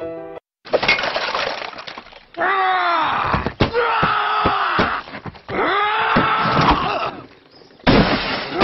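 Cartoon crashing and smashing, like breaking glass, with a voice letting out long yells that fall in pitch. It comes in a few loud stretches that cut off abruptly.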